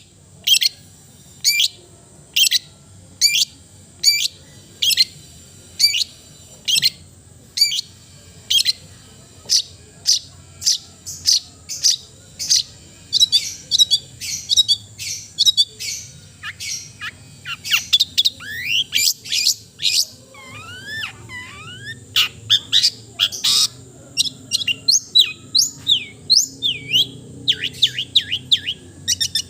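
Long-tailed shrike (cendet) calling: sharp, short, high notes repeated about once a second, turning about halfway through into faster, varied chattering with a few sweeping whistled notes.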